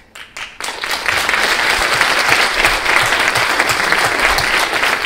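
Audience in a lecture hall applauding. A few scattered claps come first, then full applause builds within the first second and carries on steadily.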